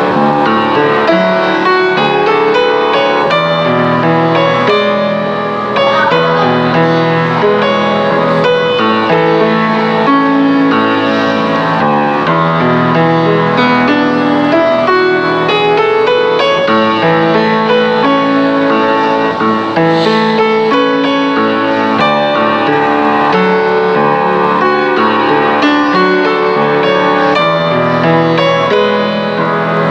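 Instrumental background music led by piano or keyboard, playing steadily throughout.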